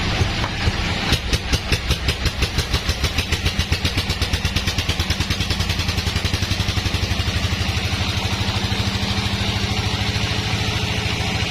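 Sawmill engine starting up: slow, separate firing beats quicken over the first several seconds into a steady, fast running rhythm.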